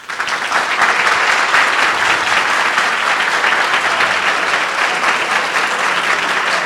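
Audience applauding, a sustained round of clapping that starts at once and keeps up steadily.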